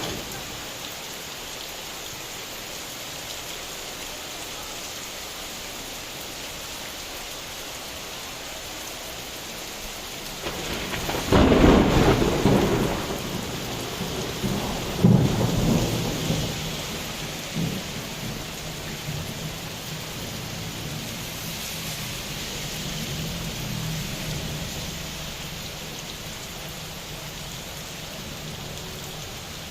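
Steady heavy rain with thunder: a loud clap about eleven seconds in, a second clap a few seconds later, then rumbling that dies away over about ten seconds.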